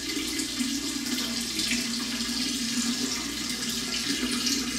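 A steady stream of liquid splashing into the water of a toilet bowl, the sound of someone urinating into a toilet, running unbroken.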